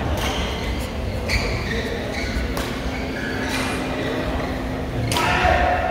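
Busy badminton hall: a steady low rumble and hum, with scattered sharp racket hits on shuttlecocks, the loudest just after five seconds in.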